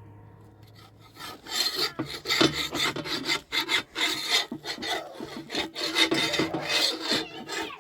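Rough, irregular scraping and rasping strokes, starting about a second in and continuing in quick uneven pulls.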